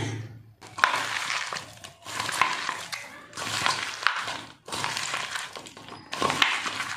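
A hand squeezing and mixing sliced raw onions and tomatoes with spice powders in a stainless steel bowl, in noisy strokes about one a second.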